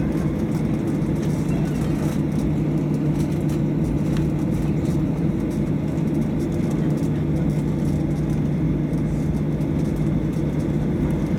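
Cabin noise of a Boeing 737-800 taxiing: a steady low hum from its CFM56-7B engines at idle, with the rush of cabin air, holding even without any spool-up.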